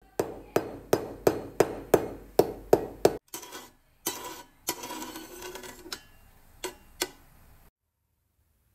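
Knife chopping on a cutting board: about three sharp knocks a second, lasting about three seconds. A looser clatter follows, then two last chops.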